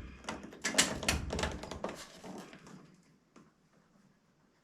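Several sharp clicks and light knocks over the first two and a half seconds: hands working at a clothes dryer's control panel, turning the timer dial and setting a door sensor against it.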